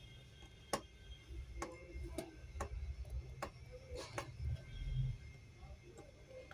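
Several light, irregularly spaced clicks of metal tweezer tips tapping against a square surface-mount IO chip and the laptop motherboard as the chip is nudged into line with its pads. They sit over a low steady hum.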